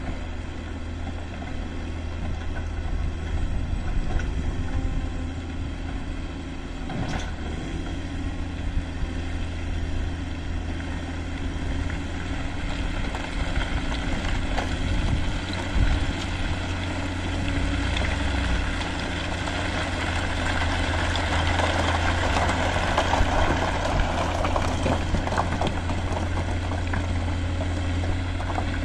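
Caterpillar 140M motor grader's diesel engine running steadily under working load, getting louder and rougher in the second half. A brief knock comes about seven seconds in.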